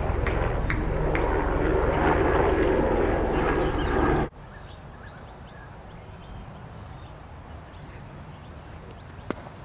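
Loud, steady rumbling outdoor noise that cuts off suddenly about four seconds in, leaving quieter outdoor ambience. Short high chirps repeat about twice a second throughout, and a single sharp knock sounds near the end.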